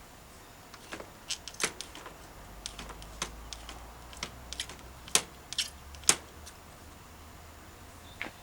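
A run of irregular sharp clicks and taps, a dozen or so, the loudest two about five and six seconds in.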